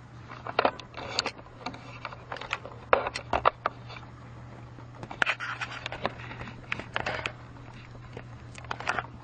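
Clatter of small hard objects being handled: irregular clusters of sharp clicks and short scrapes over a steady low hum.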